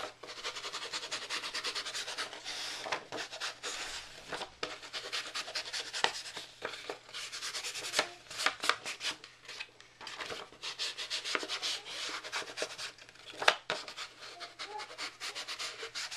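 Ink pad rubbed and dabbed along the edges of a paper piece: a long run of quick, repeated scuffing strokes with a few brief pauses.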